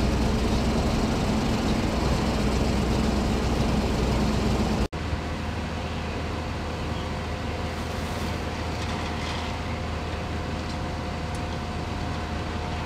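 Fire engine running steadily at close range, a deep, even hum. After a cut about five seconds in, a quieter steady engine hum with a faint held whine.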